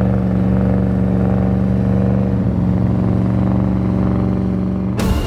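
Porsche Cayenne SUV engine running at a steady, unchanging pitch under heavy load as it tows a 285-tonne Airbus A380. It makes a constant low drone.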